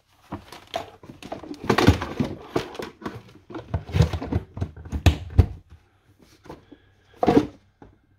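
Handling and plugging a plastic smart-plug adapter into a wall socket: a run of irregular plastic clicks, knocks and rustles, with one short louder noise about seven seconds in.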